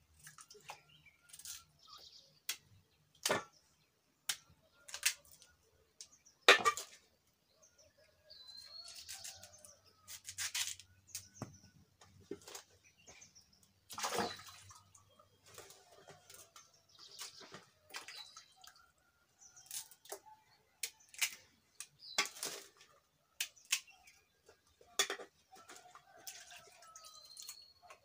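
Potatoes being peeled with a knife and dropped and rinsed in a metal pot of water: scattered clicks and scrapes with short splashes and drips.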